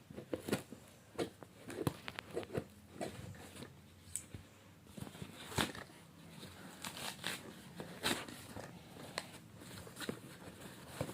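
Packaging being handled and opened: irregular clicks, crinkles and short rustles as the tripod stand is unboxed.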